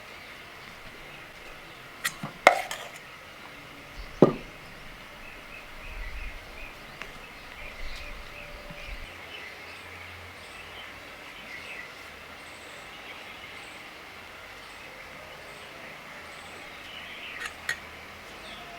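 Outdoor background with faint, repeated bird chirps, broken by a few sharp knocks: two close together about two seconds in, a louder one about four seconds in, and a pair near the end.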